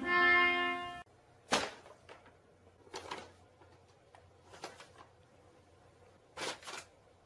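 A held musical chord that cuts off suddenly about a second in, then a quiet room with a few soft knocks or taps spread out, two of them close together near the end.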